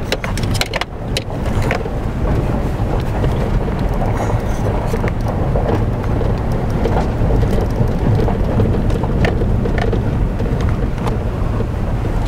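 Car rolling slowly down a dirt-and-gravel road, heard inside the cabin: a steady low rumble of engine and tyres on the rough surface, with a few small clicks.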